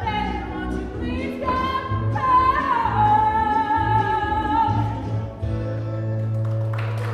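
Live stage-show song: a high, operatic-sounding singing voice holds a long note with vibrato over the band's backing, building to the song's final held chord.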